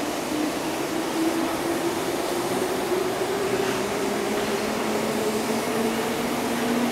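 A 485-series limited express electric train pulling out and accelerating, its traction motors giving a steady whine that rises slowly in pitch over the running noise.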